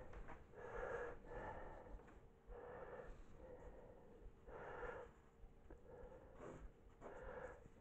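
A man's faint breathing, a soft breath every second or so.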